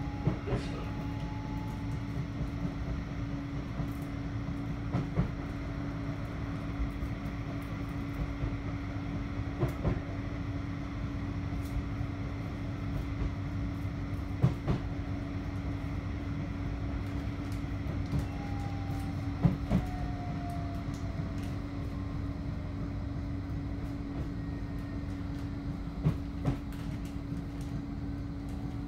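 Bombardier Flexity 2 tram running along the track, heard from inside the car: a steady low rumble with a constant hum, broken by a sharp knock every few seconds, some of them in pairs.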